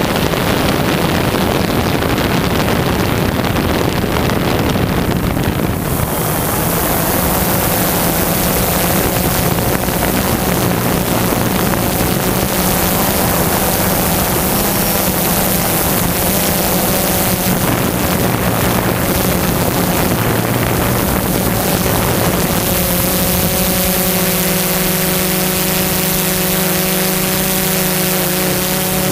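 Multirotor drone's electric motors and propellers humming steadily, heard from the camera on board, with a rush of wind noise. The hiss grows about a fifth of the way in, and the hum's pitch changes about three quarters through as the drone comes down.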